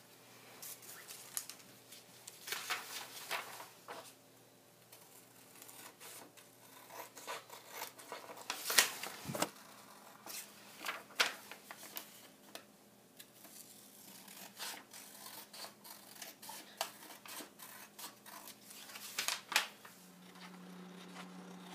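Scissors snipping through sheets of printer paper, trimming off the margins, mixed with paper rustling as sheets are picked up and set down; irregular short snips and crackles, the sharpest about nine seconds in. A low steady hum runs underneath and gets stronger near the end.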